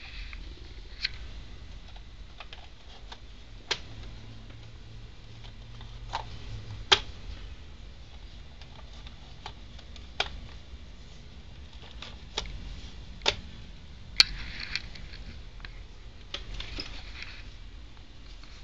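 Irregular sharp clicks and taps from a Polaroid Piranha 790 instant camera being handled, about a dozen spread unevenly, with brief soft rustling near the end over a low steady hum.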